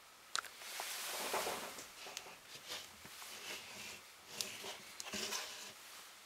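Gakken New Block plastic toy figure being handled and turned by hand: a few sharp plastic clicks and knocks, with rubbing noise between them.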